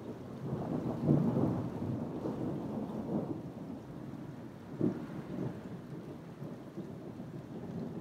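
Thunder rumbling. It swells to its loudest about a second in and rolls on for a few seconds. A sharper crack comes near the five-second mark, followed by lower rumbling.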